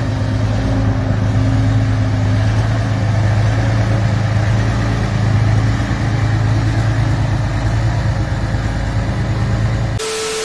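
Heavy engine of a giant home-built scrap-metal motorcycle running steadily with a low, even drone. About ten seconds in it cuts off suddenly to a short burst of TV-static hiss with a steady beep.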